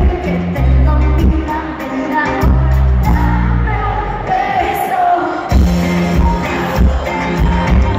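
Live pop band playing: a woman sings lead over drums and electric bass guitar. The bass and drums drop back for a moment mid-way, under a held vocal note, then come back in strongly.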